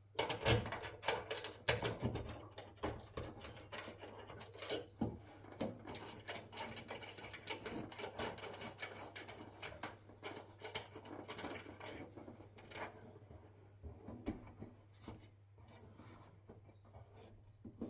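Irregular clicks, taps and rubbing of hand tools on metal as bolts are fitted to a bonnet-strut bracket, over a steady low hum.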